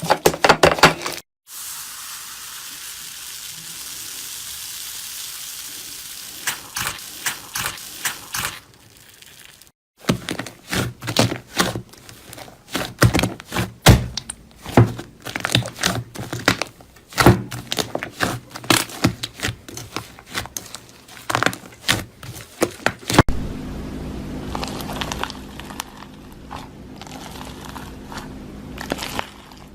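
Slime worked by hand in a run of short clips: a steady hiss, then a long stretch of dense crackling clicks and pops, then softer clicks and squishes over a faint hum.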